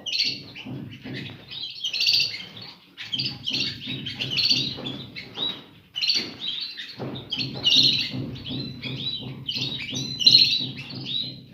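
Caged canaries and goldfinches chirping and twittering in quick, overlapping short calls, over a low background hum.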